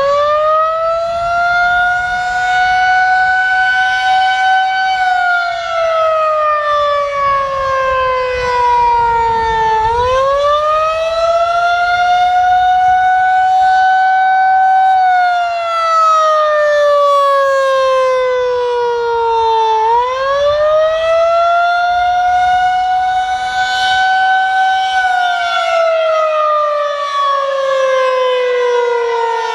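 Federal Signal 2001-SRNB outdoor warning siren sounding the Attack signal, a loud wailing tone. It finishes winding up in pitch over the first few seconds, then falls and rises in slow cycles of about ten seconds, each fall and each rise taking roughly five seconds.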